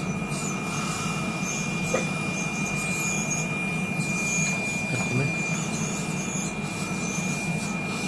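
Dental equipment running: a steady high whine under a low hum, with patches of hiss that come and go.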